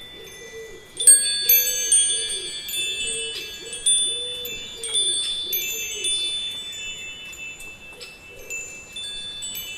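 Metal wind chimes ringing, struck in clusters from about a second in, with many high bell-like tones overlapping and hanging on. A soft, low, repeated warbling sound runs underneath through the first two-thirds.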